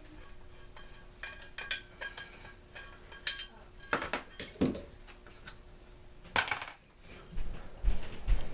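Metal tools and parts clinking and tapping in scattered, irregular strikes while the muffler is being taken off a Stihl BG56C two-stroke leaf blower, with a few dull low thumps near the end.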